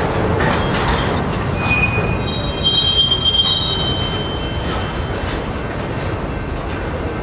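An empty grain train's covered hopper cars rolling past, their steel wheels rumbling and clicking over the rail. A high metallic wheel squeal rises about two seconds in, is loudest around three seconds, and fades by about four seconds.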